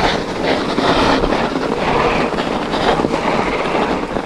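Trek Rail 7 electric mountain bike being ridden on a trail: tyre rolling noise and the bike rattling over bumps, with wind buffeting the action camera's microphone.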